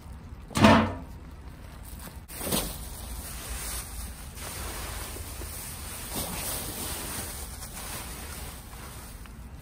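A loud thump just under a second in and a softer knock about two and a half seconds in, over a steady low rushing noise like wind on the microphone.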